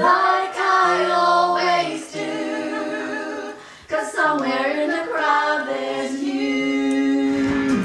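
Voices singing along to a song with little accompaniment, moving between long held notes and gliding phrases; near the end one note is held steady for nearly two seconds.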